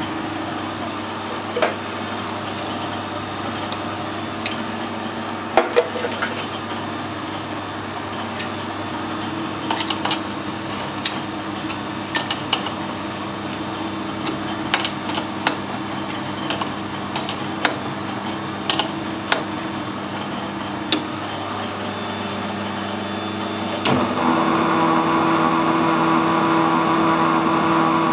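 Metal lathe humming steadily, with scattered light metallic clicks and taps as the stud and die nut are handled at the chuck. About 24 seconds in the spindle starts turning and the machine sound steps up louder.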